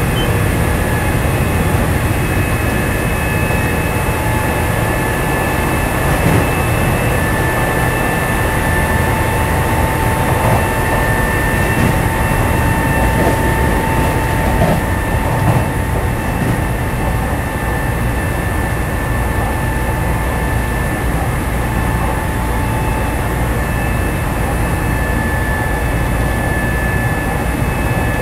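Nankai 7100 series resistance-control electric train running at steady speed, heard from on board: a constant rumble of wheels on rail with a steady whine held at an even pitch throughout.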